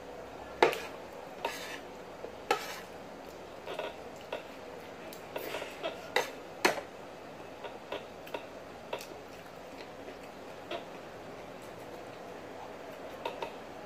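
Metal spoon clinking and scraping against a ceramic plate while eating, a scattering of short sharp clicks at irregular intervals, the loudest about half a second in and again at about six and a half seconds.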